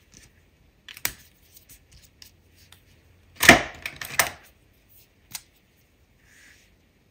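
Hand and marker handling on a tabletop: a few light clicks and taps, then a louder knock with a short rustle about three and a half seconds in, as a hand is laid flat on the table.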